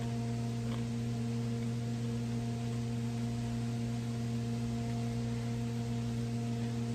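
Steady low hum with a few higher overtones, unchanging in pitch and level, and one faint click just under a second in.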